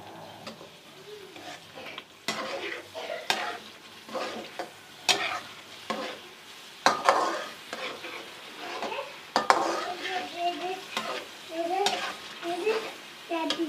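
Chicken in masala stir-frying in oil in a pan (the bhuna stage, cooked until the oil separates): sizzling, with a spoon scraping and knocking against the pan every second or two.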